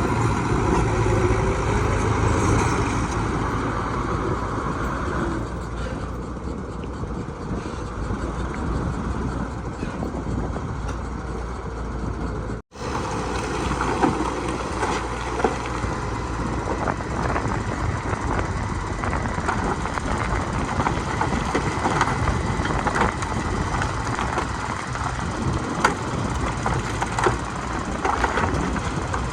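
Heavy diesel construction machinery running steadily, with scattered clanks. The sound cuts out for an instant about halfway through.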